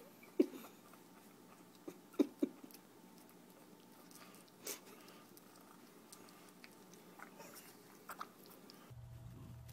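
Faint, sparse taps and rustles as a kitten bats its paws against a plastic feeding bottle held up to it, a handful of short clicks over quiet room tone. Near the end a steady low hum comes in.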